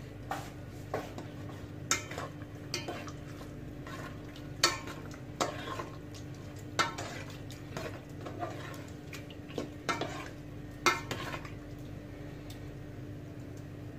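Metal spoon stirring pork humba in a metal pot, clinking sharply and irregularly against the pot, about a dozen times, over a steady low hum.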